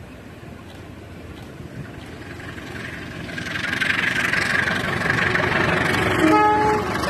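CC 201 diesel locomotive hauling a single coach as it approaches. Its engine and wheel noise grows louder from about three seconds in, and near the end comes a short horn blast of about half a second, the Semboyan 35 signal.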